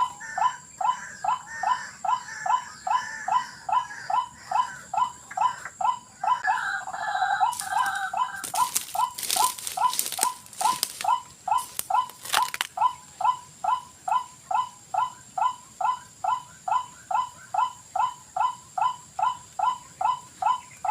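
White-breasted waterhen call: one short note repeated over and over, about two a second and very evenly spaced. A steady high-pitched thin tone runs under it, and a string of sharp crackles comes in for a few seconds around the middle.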